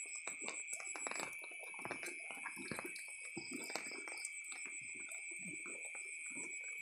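Steady high chirring of night insects, with a scatter of short, irregular low sounds beneath it.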